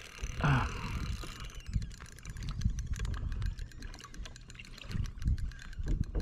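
Fishing reel clicking rapidly while a hooked mahi-mahi is fought on light line, over a low rumble of wind on the microphone.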